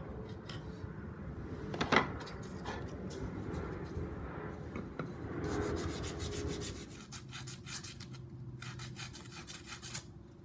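Wooden axe handle being smoothed by hand with a file and sandpaper: steady rubbing and scraping strokes, quicker and more distinct in the second half, with one sharp knock about two seconds in.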